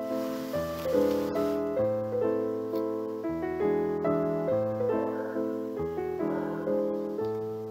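Background piano music, a new note or chord struck roughly every two-thirds of a second, each fading before the next.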